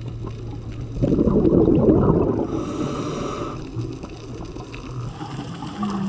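Underwater recording of a scuba diver's exhaled bubbles gurgling and rushing from the regulator, loudest for a second or so about a second in, over a steady low hum.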